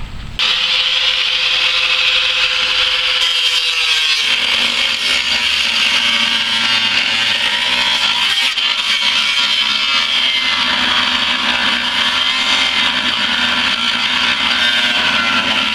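Angle grinder with a cut-off disc cutting through the steel floor of a pickup bed, a loud, steady grinding hiss with a motor tone that drops slightly about four seconds in.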